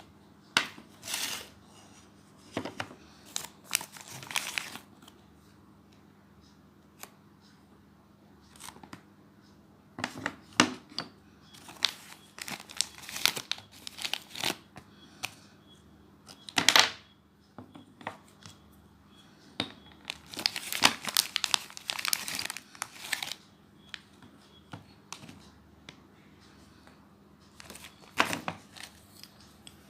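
Packaging being unwrapped by hand: irregular bursts of crinkling and tearing of wrapping material, separated by short quiet pauses.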